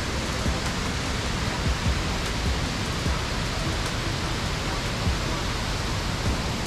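Large waterfall rushing steadily, with occasional low thumps on the microphone.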